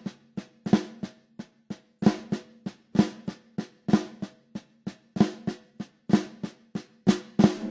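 Snare drum played slowly with sticks: an even run of strokes, about three or four a second, each ringing briefly. Accented flams recur through the run, and extra notes shift the accent so that the sticking switches hands.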